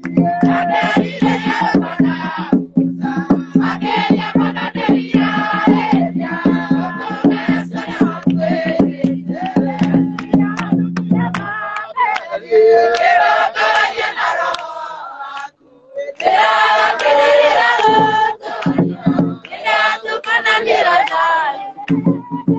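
A congregation singing a hymn together, with rhythmic hand-clapping. A steady low hum sits under the first half and stops about halfway through, and the singing breaks off briefly a little later before resuming.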